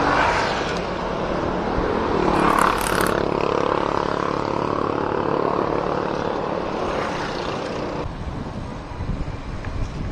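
Motor vehicle traffic heard from a bicycle on the road: a loud engine and road noise with a pitch that glides down in the middle, easing off about eight seconds in.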